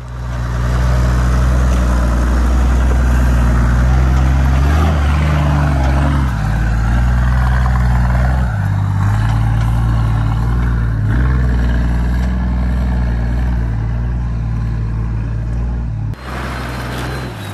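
Diesel Toyota Land Cruiser engine labouring up a steep rocky hill in low range, its note rising and falling as the driver works the throttle over the rocks.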